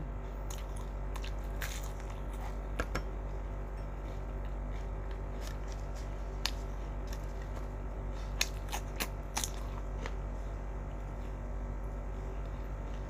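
Someone chewing crispy fried chicken with the mouth closed: scattered short crunches and mouth clicks over a steady background hum.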